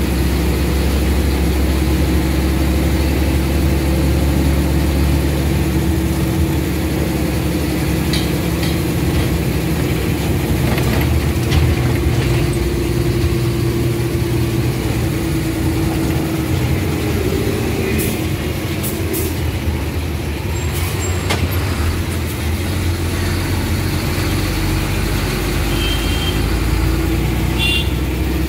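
Engine of a road vehicle running steadily under way, with road noise. The engine's low rumble eases for a few seconds past the middle, and a few sharp clicks come about two-thirds through.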